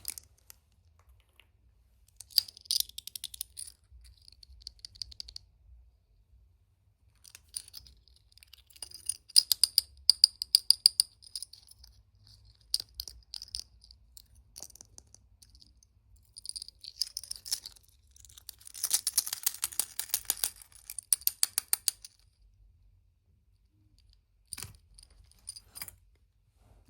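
Close-up handling of packaging and small plastic parts: spells of fine crinkling and light clicking, each a second or a few seconds long, densest about twenty seconds in.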